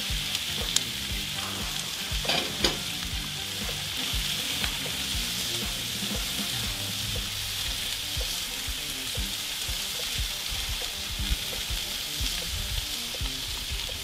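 Diced onions, carrots and celery sizzling steadily in duck fat in a hot cast iron skillet, stirred with a spatula, with a few sharp clicks in the first three seconds.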